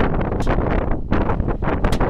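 Wind buffeting the microphone in uneven gusts over the running engines of a taxiing Lockheed P-38 Lightning, with its twin Allison V-12s.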